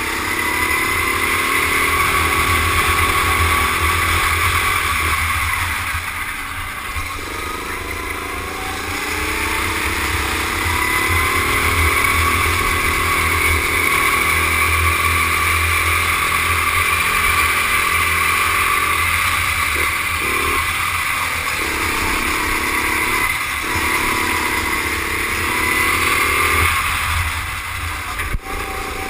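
Rental go-kart engine running hard. Its pitch sags as the kart slows for corners, about a quarter of the way in and a few times in the second half, then climbs again under acceleration. A single sharp click sounds near the end.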